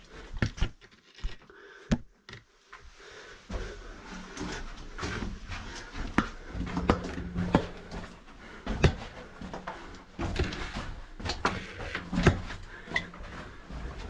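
Caver crawling through a tight cave passage: irregular knocks, clicks and scrapes of gear and body on rock.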